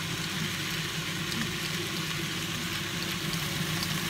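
Zucchini and green pepper slices sizzling in a frying pan, a steady hiss with faint scattered pops, over a steady low hum.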